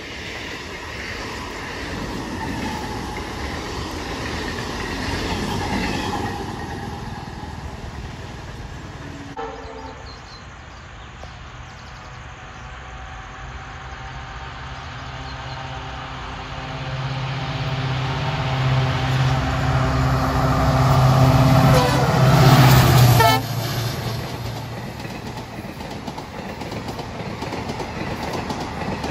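A train passing at speed, its wheels clattering over the rails. A long horn blast builds up from the middle of the stretch and cuts off sharply about two-thirds of the way through.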